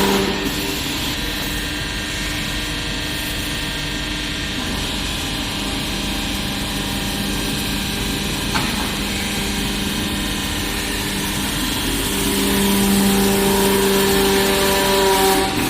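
Hydraulic baler's motor-driven pump running steadily with a low hum. The hum grows louder and stronger from about three-quarters of the way through and drops away just before the end, with a single sharp click about halfway.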